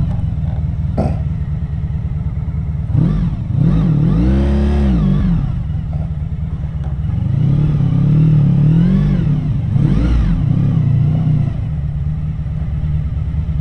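Honda VF1000R V4 engine running on VF1000F carburetors at low speed, heard up close from on the bike. Its pitch rises and falls twice with the throttle as it pulls through and away.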